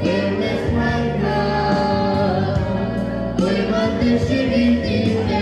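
A boy singing through a microphone and PA, over amplified keyboard accompaniment with long held bass notes.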